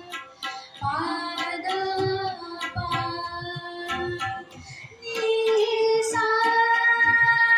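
A girl singing into a microphone with tabla accompaniment, the drums striking a steady beat beneath the voice. She sings gliding, sustained notes, then holds one long, louder note from about five seconds in.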